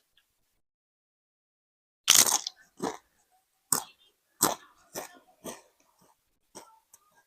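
Close-miked eating sounds: after a moment of quiet, a loud bite about two seconds in, then a run of separate crunching chews roughly every half second to second, fading toward the end.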